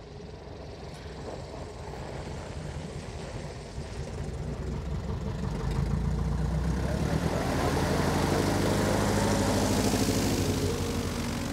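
Piper Super Cub's piston engine and propeller running at low taxiing power as the plane approaches. It grows steadily louder from about the middle and is loudest near the end as the plane passes close by.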